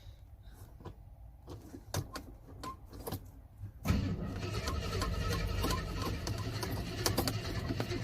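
A few clicks and knocks, then about four seconds in a Jeep Grand Wagoneer engine is turned over, a sudden jump to a louder, steady, low mechanical sound with a slow rhythm.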